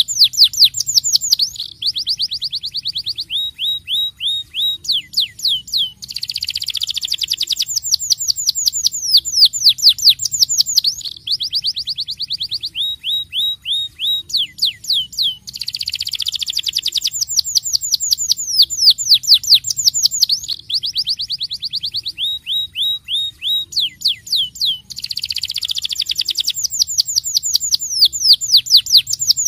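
Grey domestic canary singing a fast rolling song: rapid trills of high, downward-sweeping notes alternate with denser buzzy stretches. The same sequence of phrases repeats about every nine and a half seconds.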